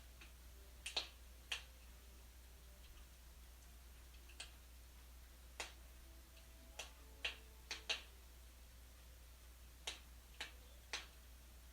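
Wood fire in a fireplace crackling: irregular sharp pops and snaps, a dozen or so at uneven intervals, over a faint steady low hum.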